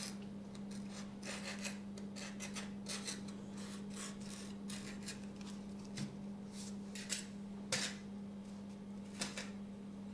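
Foam model parts being handled and pressed together for gluing: dry rubbing and scraping, with a few sharp clicks in the second half. A steady low hum runs underneath.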